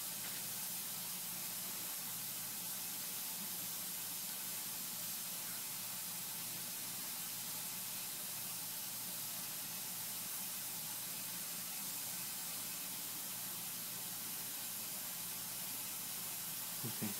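Steady hiss with a faint low hum underneath and no distinct events.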